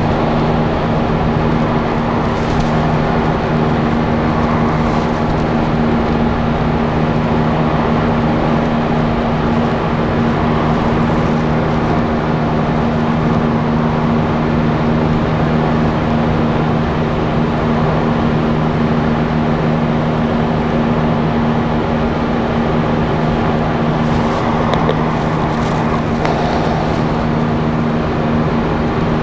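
Steady motor hum with a rushing noise over it, holding two low steady tones without change, and a few light ticks near the end.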